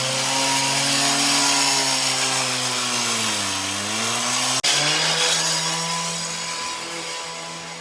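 Small petrol engine of a cutting saw running hard, its pitch sagging and recovering as it takes load, under a harsh hissing cutting noise. A sharp click comes a little past halfway, after which it runs steadier and fades near the end.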